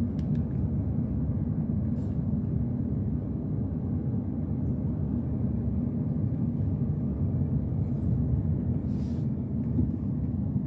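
Inside a moving car's cabin: steady low rumble of the engine and tyres on the road while driving.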